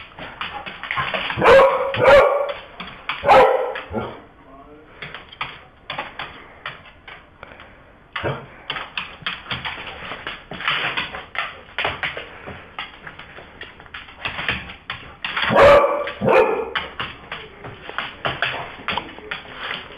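Dog barking in short bursts, three barks in the first few seconds and two more about three quarters of the way through, as it chases a laser pointer dot. Between the barks comes a steady patter of quick clicks, the dog's claws scrabbling on a hard floor.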